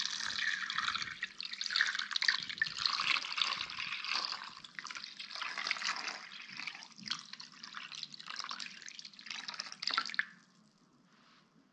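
Water poured steadily from a glass jug into a pot, splashing over raw fish pieces, stopping suddenly about ten seconds in.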